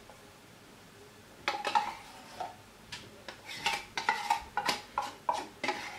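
Quick, irregular metal clinks and scrapes with a short ring, starting about a second and a half in: condensed milk being scraped out of a tin can over a stainless steel saucepan, metal knocking on the can and pan.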